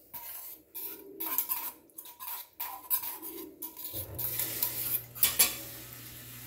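Metal tongs scraping and clinking against a small stainless steel bowl as minced garlic is scraped out into a stock pot, a run of short clinks and scrapes with the sharpest about five seconds in. A steady low hum with a hiss comes in about four seconds in.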